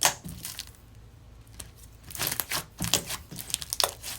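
Slime being squished and pressed by hand: a sharp pop at the start, then a run of irregular crackling pops from about halfway through.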